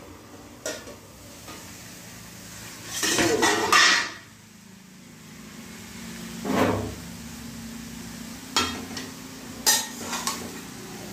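Metal clatter of a steel plate lid being taken off an aluminium kadai, loudest about three to four seconds in. Later a metal ladle knocks and scrapes against the pan several times as stir-fried broccoli is turned.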